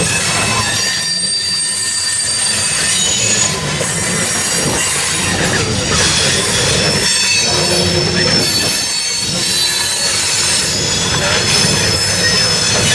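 Loaded coal hopper cars rolling past, their steel wheels squealing on the rails in several thin, steady high pitches over a continuous low rumble.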